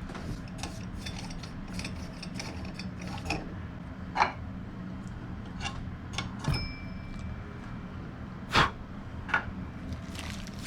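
Small clicks and taps of shower mixing-valve parts being handled and worked apart by hand, with a few sharper knocks, over a steady low hum.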